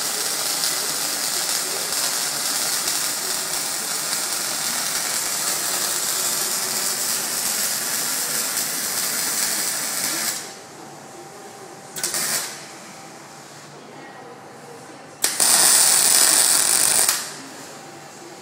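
Electric arc welding: the arc runs steadily for about ten seconds and then stops. About two seconds later comes a brief half-second strike, and near the end a louder weld of about two seconds.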